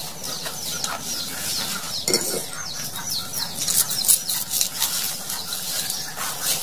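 Birds chirping repeatedly in short, quick, falling high notes, with a brief lower cluck about two seconds in. Under them is the soft wet rubbing of salty fingers being scrubbed together.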